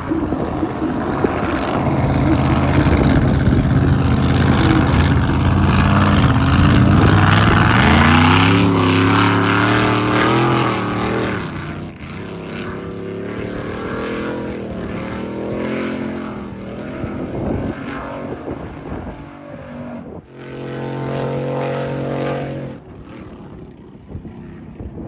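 Racing drag boat engine running hard, its pitch climbing. It then drops off to a lower, wavering note. Near the end a steady, even engine note sounds for about two seconds and cuts off sharply.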